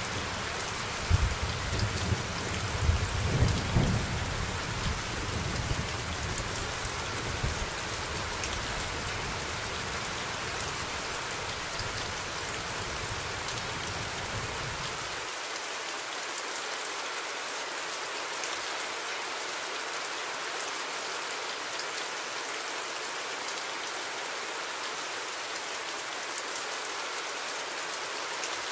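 Steady rain noise with deep rumbles of thunder, loudest in the first few seconds. About fifteen seconds in the low rumble cuts out suddenly, leaving only the even hiss of rain.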